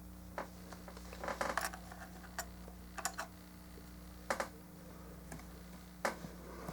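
Small hard plastic model-kit parts clicking and tapping as they are handled, about half a dozen sharp irregular clicks, some in quick clusters.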